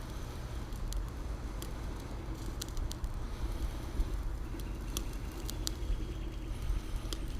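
Small twigs crackling and popping as a fire catches in the base of a Kelly Kettle camp stove, a sharp click every second or so, over a low steady rumble.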